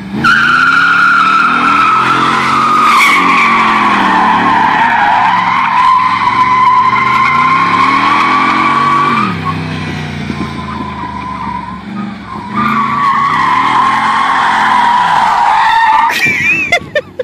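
C4 Chevrolet Corvette V8 revving up and down while its rear tyres squeal in a long, steady screech as it spins donuts. The squeal drops back for a few seconds past the middle, then comes back and cuts off near the end.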